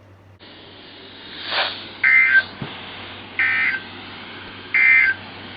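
NOAA Weather Radio SAME end-of-message data bursts: three short electronic warbles about a second apart over a light hiss. They mark the end of the required weekly test message.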